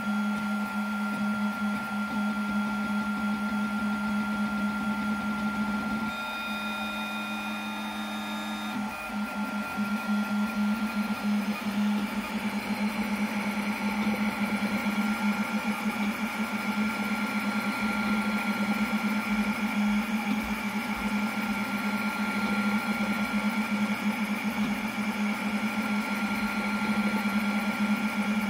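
Snapmaker 2.0 A150 laser module working: a steady cooling-fan hum under the whine of the stepper motors moving the head. About six seconds in the pitch changes for a few seconds as the head travels, then a busier run of short moves while it engraves text.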